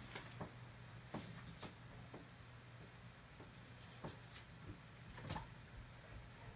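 Faint, scattered taps and scratches of a golden retriever puppy's claws on a window sill and glass, a few light clicks spread unevenly, over a low steady hum of room tone.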